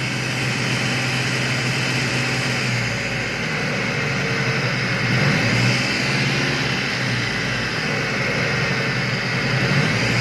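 Car engine running with a droning, humming whine, briefly picking up speed about halfway through when it is revved. The mechanic traces the hum to a clogged oil pickup strainer, blocked because a dented oil pan has pressed in on it.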